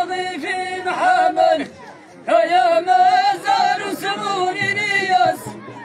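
Unaccompanied Amazigh sung poetry from a group of men singing together in long held notes. The song comes in two phrases, with a short break about two seconds in.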